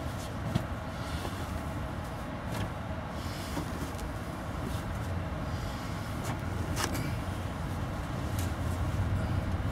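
Steady low rumble of an Amtrak passenger train in motion, heard from inside a sleeper compartment, with a few brief knocks and clicks.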